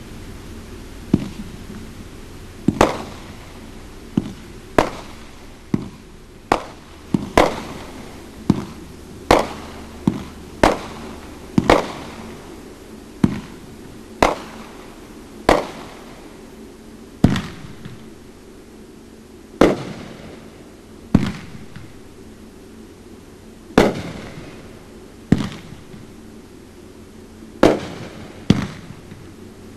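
A 500-gram, 18-shot aerial fireworks cake firing: a string of sharp bangs from shell breaks, irregularly spaced about a second or two apart, each with a short echoing tail.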